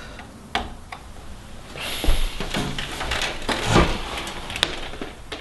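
Small plastic clicks and handling noise as the retaining latches on a desktop PC's RAM slots are pushed open.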